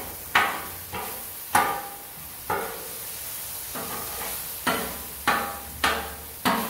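Metal spatula chopping and scraping diced chicken on a hot flat-top griddle, striking the steel surface about eight times at an uneven pace of roughly once a second, each strike with a short metallic ring. A steady sizzle of the chicken cooking runs underneath.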